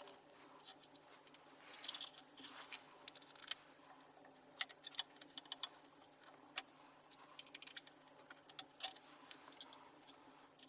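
Scattered light clicks and taps of small parts and tools being handled by hand, with a cluster of sharper clicks about three seconds in, over a faint steady hum.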